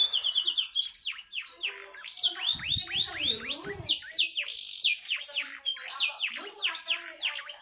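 Domestic canary singing a fast, tightly packed song: a continuous run of short whistled notes, each falling steeply in pitch, several a second, mixed with lower warbled phrases.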